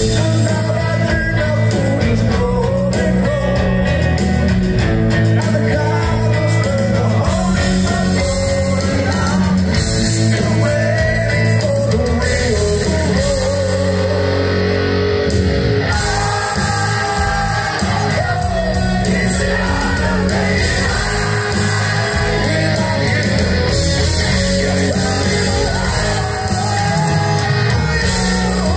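Live hard rock band playing: a male lead singer sings over distorted electric guitars, bass and drums.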